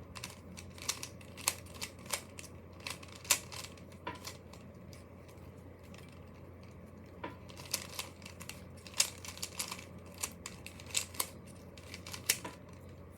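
Plastic puzzle cube being turned by hand: irregular sharp clicks and clacks as the layers rotate, with a pause of about three seconds near the middle.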